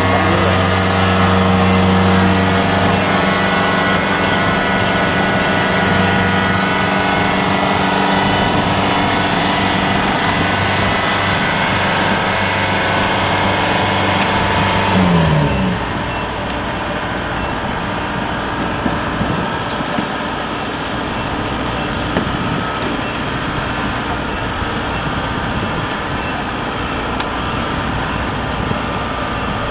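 Heavy machine engine running steadily. About halfway through its even tone stops abruptly with a brief slide in pitch, and a lower, rougher engine rumble carries on, somewhat quieter.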